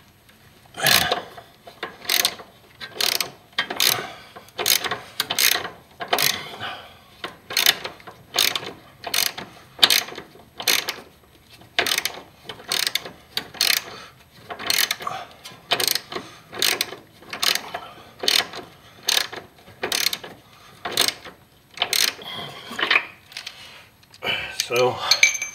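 Hand ratchet with a 13 mm socket clicking in repeated back-swings while loosening a rear shock absorber's upper mounting nut. There is a burst of pawl clicks about every three-quarters of a second, and it stops a few seconds before the end.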